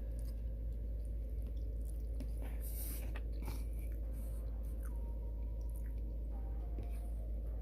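Close-up chewing and mouth noises of someone eating scrambled eggs and sausage, with scattered small clicks and smacks, over a steady low hum.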